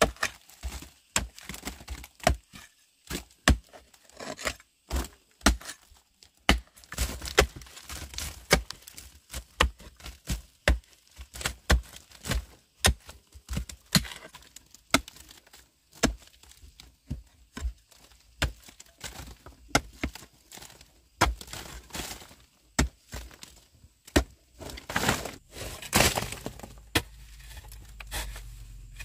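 Pickaxe striking a bank of layered, flaky rock again and again, about one or two blows a second, each with broken flakes clattering down. Near the end the blows give way to a denser stretch of scraping and rattling of loose rubble.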